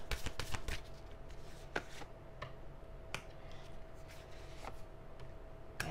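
Tarot cards being handled and laid out: a few scattered soft taps and flicks, over a faint steady hum.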